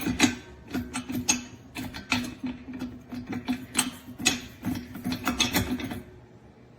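Metal hose reel being handled and turned: irregular clicks, knocks and rattles over an on-and-off low hum, which stop about six seconds in.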